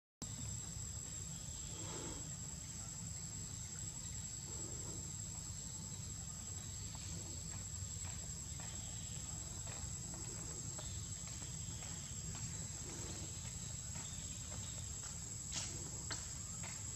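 Insects in the forest giving one steady, high-pitched unbroken drone, over a low rumble and a few faint clicks.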